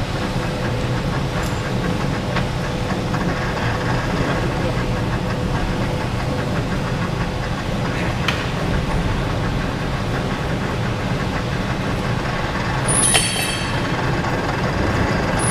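Metal lathe running steadily under power with its gear train engaged for thread cutting, a constant mechanical hum and clatter as a threading pass is cut on a 3/4 NPT taper thread. A brief high-pitched metallic ring sounds near the end.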